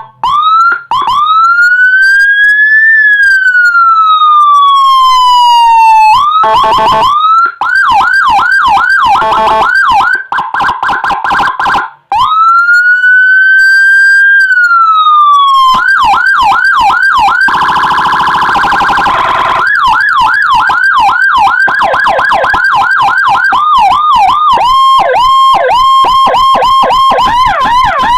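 Electronic police siren module playing Whelen HHS 3200-style tones, switching between patterns: a slow wail that rises and falls, fast yelping chirps about four a second, a second wail, then rapid warbling chirps. A harsher, rougher-toned stretch comes about two-thirds of the way through.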